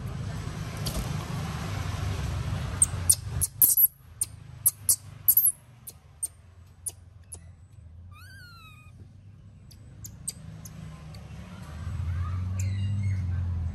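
A run of sharp clicks and taps, then one short high squeak that falls in pitch from a pet monkey. A low rumble runs under the start and comes back near the end.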